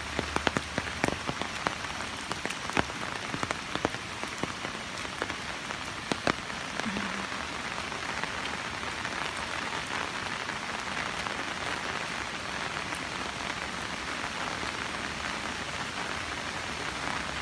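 Heavy, steady rain, with many close, sharp drop impacts ticking over the patter during the first six seconds or so, then an even rush of rain.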